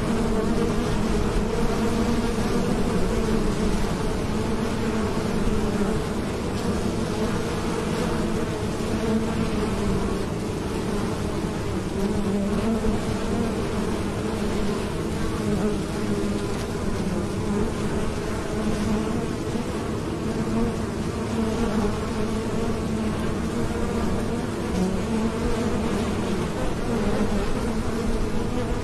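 Many honeybees buzzing at their hive entrance as they come and go: a steady, unbroken hum of wingbeats.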